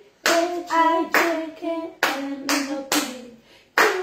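Hands clapping in a steady beat, five claps a little under a second apart, with voices singing a tune along with the clapping.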